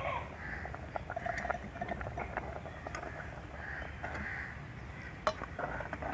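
Metal spoon clinking and scraping in a cooking pot as sugar is stirred into milk vermicelli: scattered light clinks, with one sharper knock a little after five seconds.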